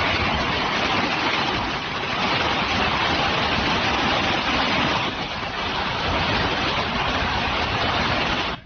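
Heavy storm rain and wind: a steady, loud hiss of downpour that cuts off suddenly near the end.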